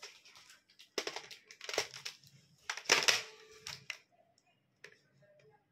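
Plastic and metal clicks and clacks from a spring-powered AK-style airsoft rifle being worked, in three short bursts about one, two and three seconds in, the third the loudest, and a single faint click near the end.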